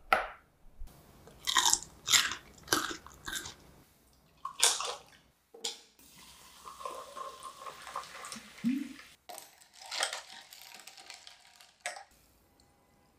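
Crunchy bites of pickled ginger and peach slices, then sparkling water poured over ice in a glass and fizzing. The pitch of the pour rises briefly as the glass fills. Near the end a glass straw stirs the drink and clicks once against the glass.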